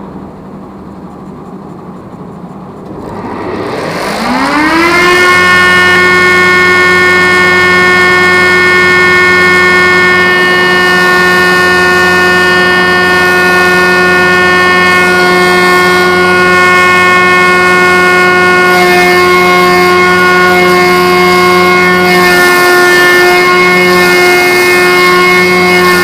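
Homemade log-rounding machine's motor spinning up, its whine rising in pitch over about two seconds, then running at full speed with a loud, steady whine.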